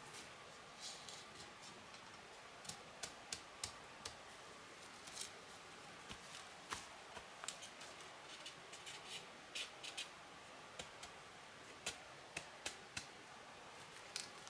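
Quiet, irregular light clicks and snaps of hands working with material, several in quick succession in places, over a faint steady hiss.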